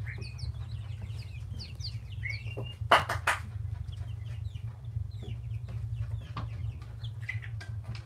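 Aseel chicks peeping: many short, high cheeps in a steady chatter. A single sharp knock comes about three seconds in, over a steady low hum.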